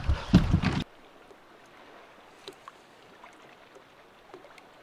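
Loud commotion on a fishing boat, excited voices and noise, cuts off abruptly under a second in. A faint, quiet hush with a few soft ticks follows.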